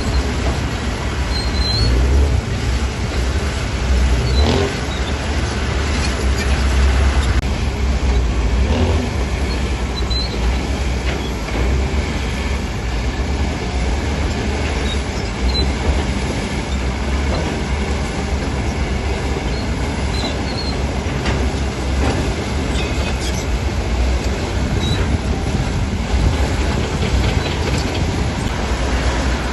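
Heavy diesel earthmoving machinery running: a steady low engine rumble with scattered short metallic squeaks and a few clanks.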